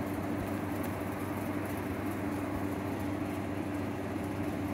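Steady mechanical hum with a constant low tone and a faint even hiss, unchanging throughout.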